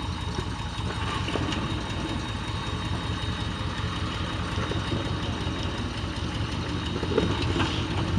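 A classic Ford Bronco's engine running steadily at low revs as the truck crawls nose-down over a rock ledge.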